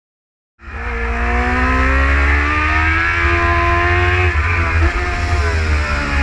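Kawasaki Ninja H2's supercharged inline-four engine at high revs under hard acceleration, starting about half a second in. The pitch climbs steadily, dips briefly a little after four seconds in as it shifts up, then climbs again, over a heavy wind rumble on the onboard microphone.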